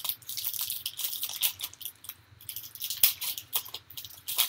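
Foil wrapper of a Topps Platinum football card pack crinkling and tearing as it is torn open by hand, in a fast irregular crackle, with one sharp snap about three seconds in.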